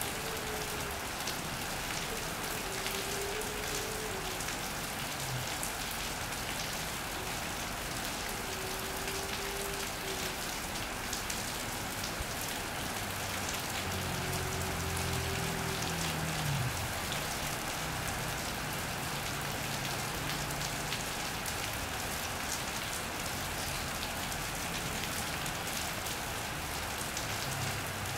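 Steady rain falling on an iron roof and wet paving, a constant hiss scattered with small drop taps. About halfway through, a low engine hum from a passing vehicle rises and fades.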